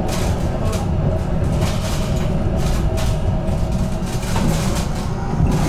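HTM GTL8 articulated tram running on its rails, heard from inside the car: a steady low rumble with a faint steady tone above it and sharp clicks every so often.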